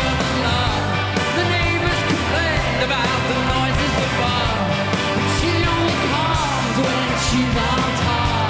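Live rock band playing with a male lead singer: a sung melody over drums, bass, guitars and keyboards, heard through the stage sound system with a steady beat.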